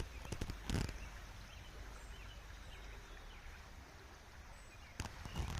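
Steady rush of a rain-swollen creek, with a few sharp knocks near the start and again near the end, and faint bird chirps in between.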